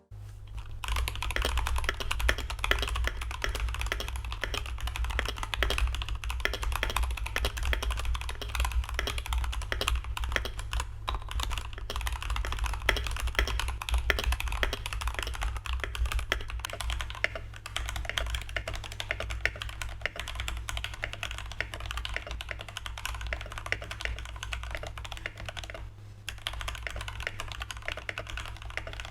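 Gammakay TK68 65% mechanical keyboard, with its stock switches and stabilisers and a silicone case mod, being typed on continuously: a fast, dense stream of key clacks with a short pause about 26 seconds in. A steady low hum runs underneath.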